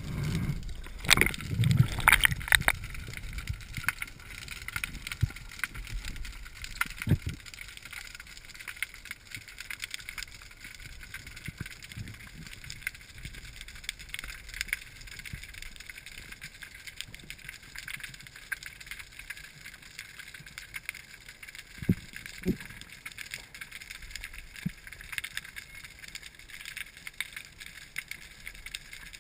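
Underwater ambience picked up by a diver's camera: a steady crackling hiss with scattered sharp clicks. Louder low rumbles and knocks in the first few seconds, then isolated clicks about a quarter of the way through and twice close together about three quarters of the way in.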